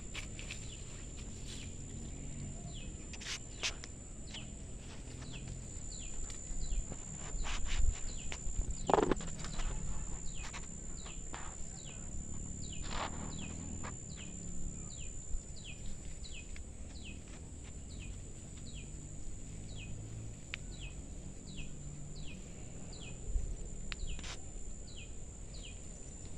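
Outdoor garden ambience: a steady high insect drone, a bird repeating a short falling chirp over and over, and rustling and crackling of plants and dry stalks as someone moves through them, loudest twice about a third and half of the way in.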